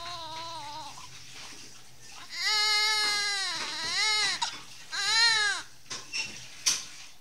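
Newborn baby crying: a wail trails off in the first second, then a long cry begins about two seconds in, followed by a shorter one near five seconds. A few small sounds and a sharp click come near the end.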